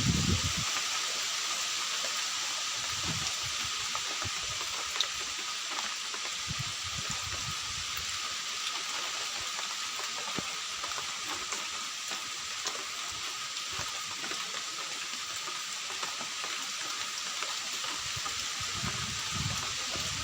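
Steady hiss of falling rain, with a few soft low thuds now and then.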